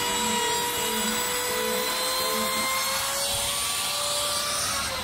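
Wood router running at full speed, cutting a slot in wood: a steady high whine over a hiss, its pitch dropping near the end.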